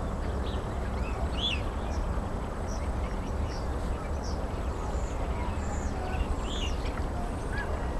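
Birds calling in short, scattered chirps and calls over a steady low rumble.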